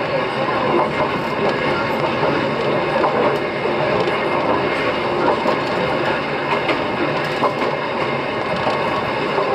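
Wakayama Electric Railway 'Omocha Densha' local train running along the track: a steady rumble of wheels on rail with a few faint clicks.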